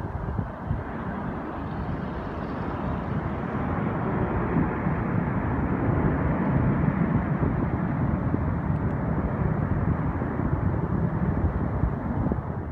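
Steady outdoor vehicle rumble that grows a little louder about four seconds in and then holds, with ragged low buffeting underneath.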